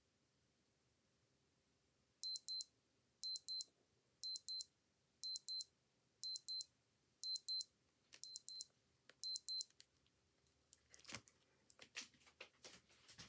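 Old digital watch alarm beeping: a high double beep about once a second, eight times, then it stops. A run of clicks and rustles follows near the end.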